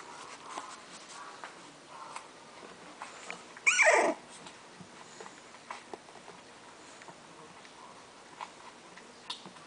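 English bulldog puppy giving one short, loud yelp that falls steeply in pitch, about four seconds in. Faint whimpering squeaks and light ticks come and go around it.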